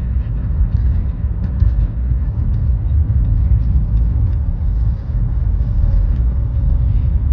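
Steady low rumble of road and engine noise inside a moving car's cabin, with a few faint light ticks.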